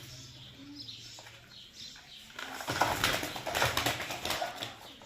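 Parrots giving short, high calls, then a loud flurry of wing-flapping and scrabbling starting about halfway through and lasting about two seconds.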